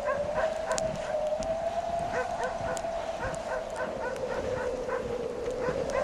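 Wind howling as a steady, slightly wavering whistle. Over it comes a rapid series of short yelping calls, several a second through the middle.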